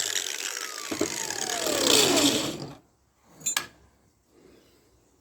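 An angle grinder spinning down after being switched off, its whine falling steadily in pitch for about two seconds until it dies away. A single light metallic clink follows about three and a half seconds in.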